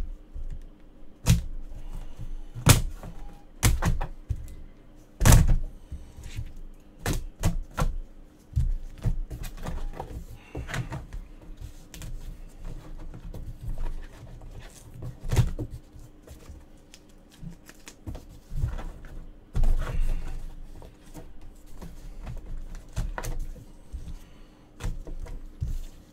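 Irregular clicks, taps and knocks of things being handled on a desk, with a few louder thuds scattered through, over a faint steady hum.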